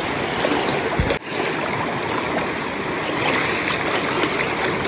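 Steady rush of a river flowing over rocks, with a low thump and a brief dip about a second in.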